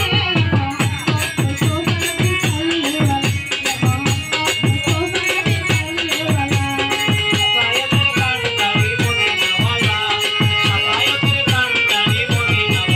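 Live Bengali folk devotional music in an instrumental passage: a dhol drum beaten in a quick steady rhythm, about four strokes a second, under a melody, with rattling percussion.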